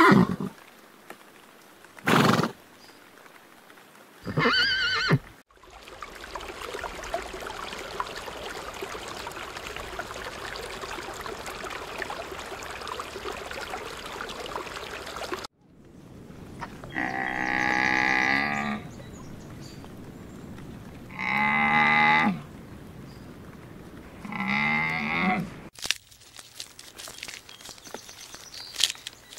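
A pony whinnying in the first few seconds, then a steady hiss of aquarium water for about ten seconds. After that come three long, loud animal calls a few seconds apart, the loudest sounds here, from an animal that is not shown.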